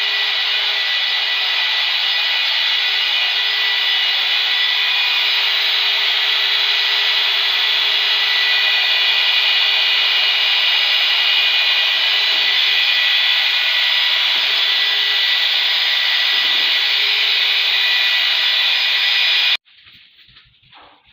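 Electric paddle mixer running steadily at a constant speed with a steady motor whine, stirring a bucket of self-levelling epoxy. It stops abruptly near the end.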